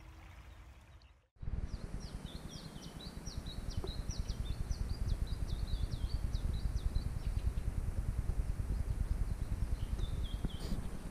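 A small songbird singing a fast run of high chirps, then a few more near the end, over a steady low wind rumble on the microphone. The sound drops out briefly about a second in.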